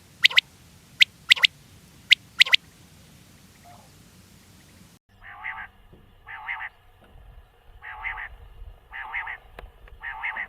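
Quails calling: a few sharp, very short high chirps in the first couple of seconds, then after a cut a repeated call phrase given five times, each about half a second long, at roughly one-second intervals.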